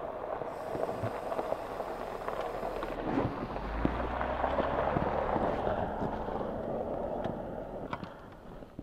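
BMW R1200 GS Adventure motorcycle riding on a gravel road: a steady rush of wind and tyre noise with small stones clicking, and a low rumble swelling in the middle before the noise fades near the end.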